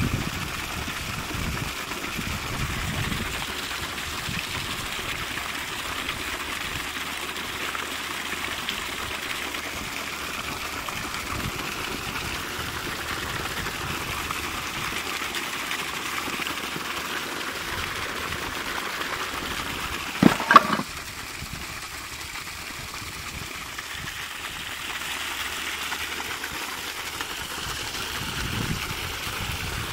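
Water gushing steadily from a well pump's outlet pipe and splashing onto the ground. About two-thirds of the way through there is one brief, loud, pitched sound.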